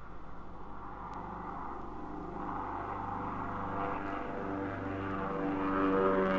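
Propeller aircraft engine drone, growing steadily louder as the plane approaches or runs up for takeoff. It is played from a vinyl sound-effects record, with a few faint record clicks.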